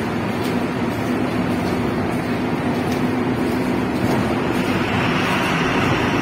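Steady machinery noise in a tunnel: a continuous low hum under a rushing hiss, with the hiss growing louder about four and a half seconds in.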